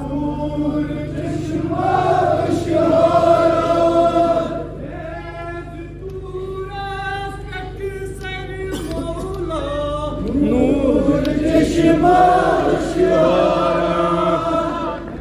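Group of men chanting a noha, a Shia mourning lament, together in long sung lines that swell twice.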